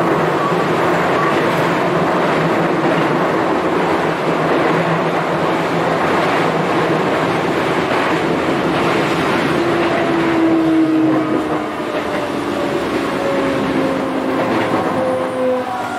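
Running noise heard inside a Hokuso 7800-series commuter train: a steady noise of wheels on rail and the car body. About ten seconds in, several tones from its Toyo GTO-VVVF inverter and traction motors come in and slide down in pitch, typical of the train braking.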